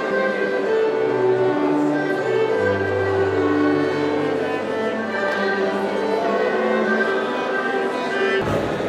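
A string ensemble of violins and cello playing a slow classical piece, the violins carrying a bowed melody over a long held low cello note. The music cuts off suddenly near the end.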